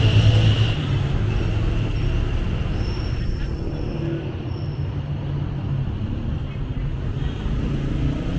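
Street traffic noise: car and motorbike engines running and passing on a busy city street as a steady rumble, loudest in the first second.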